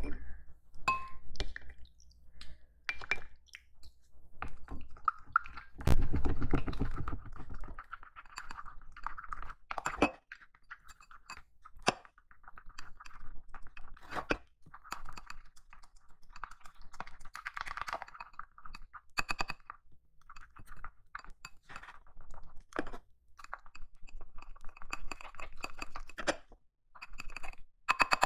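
A plastic spoon stirs a thick, gritty slime mixture in a glass bowl: irregular clinks and taps against the glass mixed with wet, crunchy scraping. There is a louder knock with a brief rumble about six seconds in.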